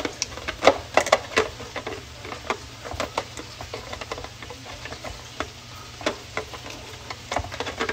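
Plastic lid being fitted and twisted onto the jar of a Babycook baby-food steamer-blender: a string of irregular small clicks and knocks as it fails to lock shut.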